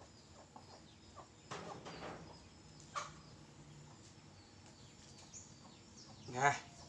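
Chicken clucking, a few short calls with the loudest one near the end.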